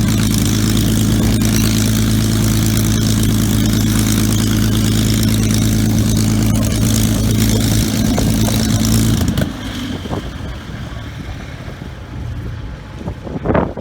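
An engine running at a steady speed with a strong, even low hum. It cuts off abruptly about nine seconds in, leaving quieter wind noise and a single knock near the end.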